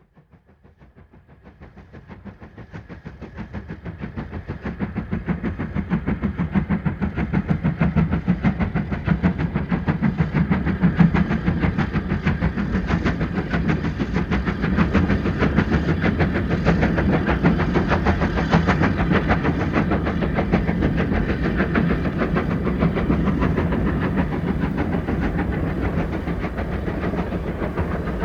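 Steam train approaching, rising out of silence and growing louder over about eight seconds, then running on steadily with a fast, even beat.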